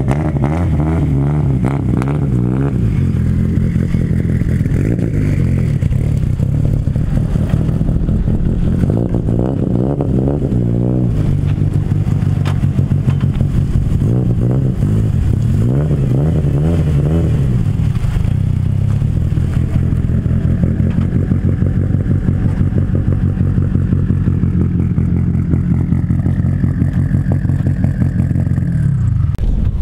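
Mitsubishi Lancer Evolution's turbocharged 4G63 inline-four running through its exhaust, with a few short revs that rise and fall back to idle.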